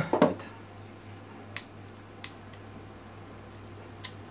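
Handling noise from metal kitchen tongs and a wooden stick: a short loud clatter at the start, then a few faint clicks, over a low steady hum.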